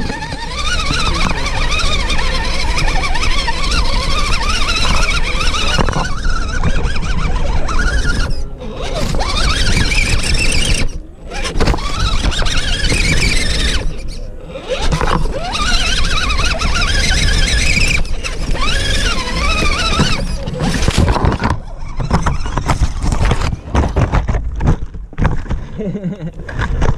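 Electric motor and gear drive of a 1/10-scale RC rock crawler whining as it climbs. The pitch rises and falls with the throttle and breaks off briefly several times.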